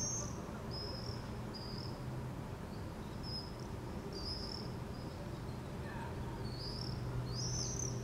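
Common swifts screaming: short, high, shrill calls every second or so, loudest at the start and again near the end, over a low steady hum.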